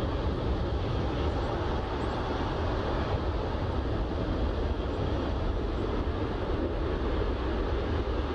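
Large transport aircraft engines heard as a steady deep rumble with a rushing hiss over it.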